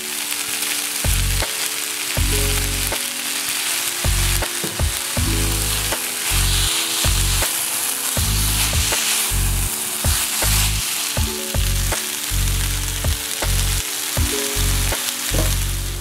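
Diced food sizzling as it fries in hot oil in a nonstick pan, stirred and turned with a spatula. Background music with low held notes plays throughout.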